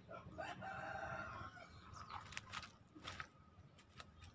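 A chicken calling once, a drawn-out call about a second and a half long near the start, followed by a few sharp clicks.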